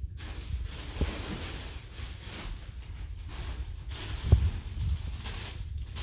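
Plastic carrier bag rustling as groceries are rummaged for and pulled out of it, with a soft knock about a second in and a louder thump a little past four seconds.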